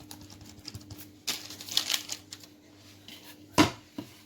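Hands pressing and patting soft croquant dough on a metal baking tray: scattered light taps and clicks, a brief rustle a little over a second in, and a louder knock about three and a half seconds in. A faint steady hum runs underneath.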